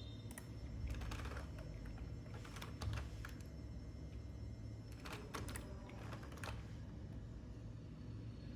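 Computer keyboard keys tapped in a few short bursts of clicks, over a low steady hum.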